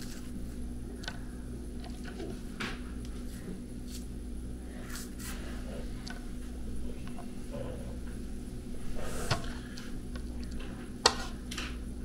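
Faint handling sounds of a knife and a cut orange on a plastic cutting board: scattered soft taps and scrapes over a steady low hum, with a sharper knock near the end.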